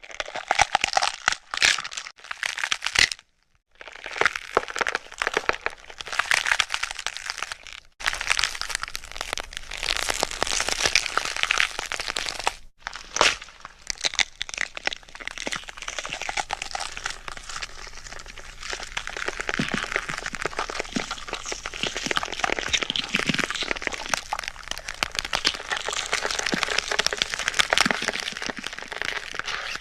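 Gore and bone-breaking sound effects: dense cracking and crunching, like bones snapping and flesh being crushed. They come in several takes split by brief silences about three and a half, eight and thirteen seconds in.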